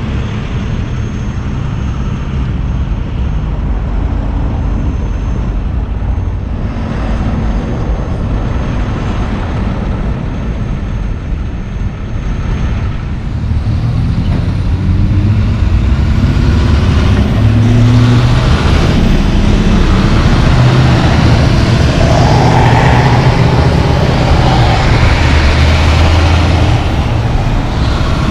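Diesel engines of loaded logging trucks and other traffic moving through an intersection. The heavy engine rumble grows louder about halfway through, and one engine's note rises as it pulls away under load.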